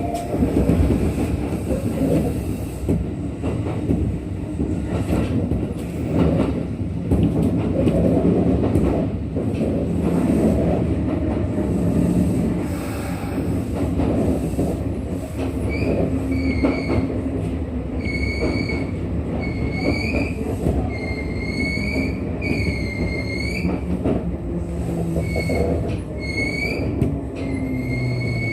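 Electric train rumbling on the rails, with a wavering, high-pitched metallic wheel squeal that comes and goes from about halfway in.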